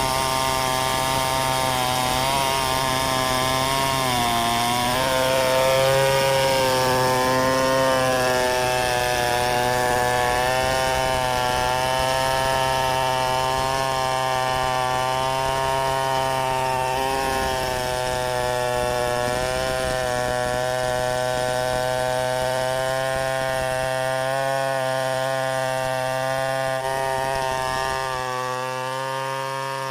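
Large two-stroke chainsaw, a Stihl 070, running under load as it cuts lengthwise through wood in freehand milling. The engine note dips and recovers about four seconds in, then holds fairly steady with small wavers as the bar works through the cut.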